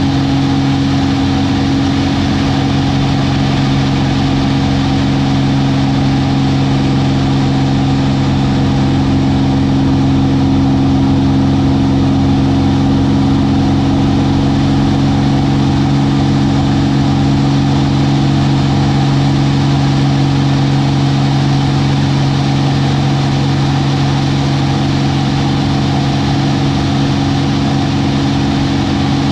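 Aerobatic airplane's piston engine and propeller running steadily, heard from inside the closed cockpit, the pitch holding level throughout.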